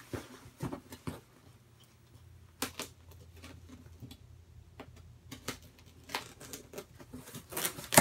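A taped cardboard box being cut and pulled open by hand: scattered clicks, scrapes and rustles of cardboard and tape, with the loudest crunch near the end.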